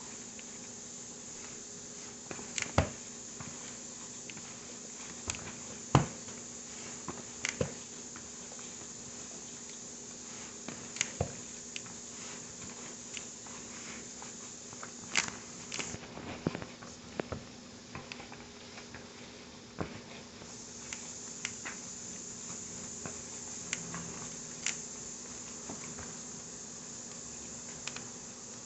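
Shrimp dumpling filling being mixed in a bowl: scattered, irregular clicks and taps, the loudest about three and six seconds in, over a steady background hum and hiss.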